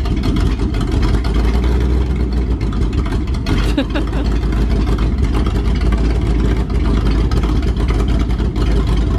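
Ford F100 pickup's engine running steadily with a loud, deep exhaust rumble, its exhaust partly taken off.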